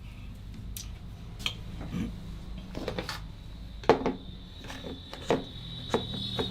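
A barber's hands working on a client's arm during a massage: a string of short, sharp clicks and smacks, about ten of them at irregular intervals, the loudest a little past the middle.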